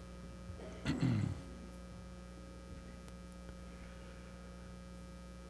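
Steady electrical mains hum in the sound system, with one short, louder low sound about a second in.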